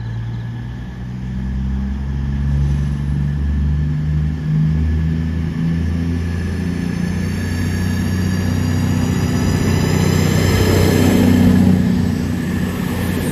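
Class 220 Voyager diesel-electric train pulling away, its underfloor diesel engines revving up under load. From about halfway, a rising whine joins them and the sound grows louder toward the end.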